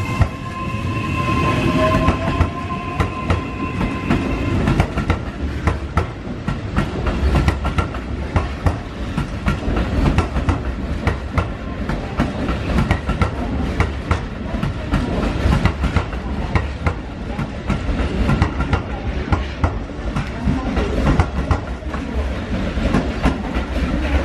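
Keihan 3000 series electric train passing through, its wheels clattering over rail joints and points in a long, dense run of clicks.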